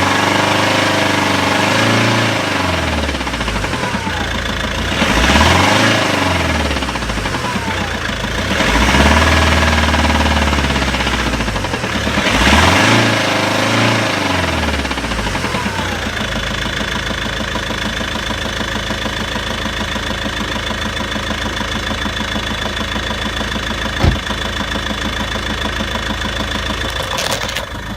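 Volvo V70 2.0D diesel engine revved up and let fall back four times, then settling to a steady idle, with a single sharp click late on. A knocking runs through it, which the owner suspects comes from the clutch or a failing dual-mass flywheel.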